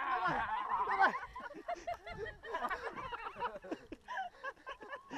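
A group of people calling out and talking over one another, several voices overlapping with no clear words.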